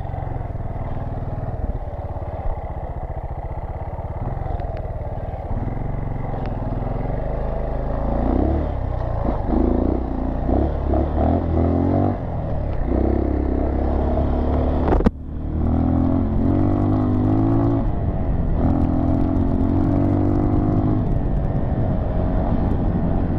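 Dirt bike engine running under way on a rough sandy trail, its note stepping up and down as the throttle and gears change. About fifteen seconds in there is a single sharp knock, with a brief dip in the sound.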